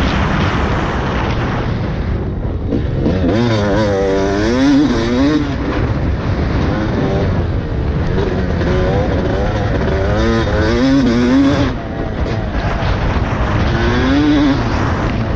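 Yamaha YZ250 two-stroke dirt bike engine being ridden hard on a motocross track, revving up and dropping back again and again as it accelerates and shifts, over a constant rush of wind noise.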